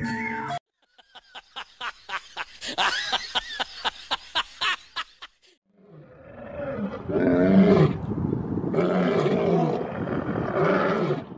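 Two male lions roaring: deep, loud calls that build from about halfway through, peak soon after and carry on. Earlier comes a run of short sharp sounds.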